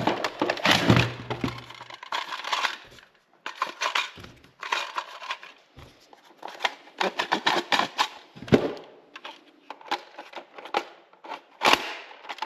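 Toy foam-dart blasters firing and darts striking: an irregular run of sharp clicks and cracks, with a few heavier knocks about half a second in, past the middle and near the end.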